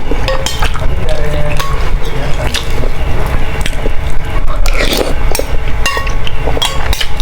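Close-miked eating of instant noodle soup: chewing and slurping, with a spoon scraping and clinking against the bowl.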